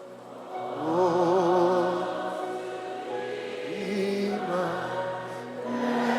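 Slow gospel worship music: a voice holds long notes with a wavering vibrato over steady sustained chords, with choir-like singing.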